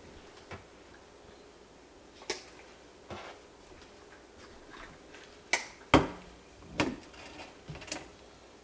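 Scattered knocks and clinks of a spatula and a slow-cooker crock being handled while soap batter is scraped and spooned out. The loudest knocks come about six seconds in.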